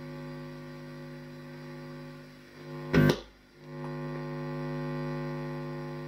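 50 Hz mains hum and its overtones coming from the loudspeakers of a Marantz CRS-8000 receiver, induced in its circuits by the magnetic field of a power transformer held close to the boards. The hum drops away for a moment and comes back louder as the transformer is moved. A sharp knock about three seconds in.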